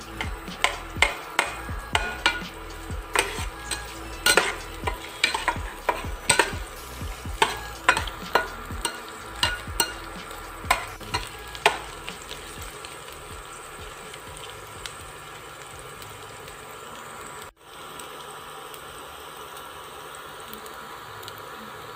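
Sliced red onion and garlic sizzling in hot oil in a pan while a spatula stirs them, knocking and scraping against the pan over and over; about twelve seconds in the stirring stops and the frying sizzle goes on alone.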